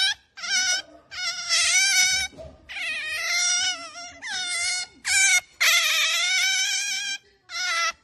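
Asian small-clawed otter squeaking in a run of high, wavering calls, about seven or eight of them, some short and some drawn out to over a second. This is its pampering noise, the affection-seeking call it makes while being stroked.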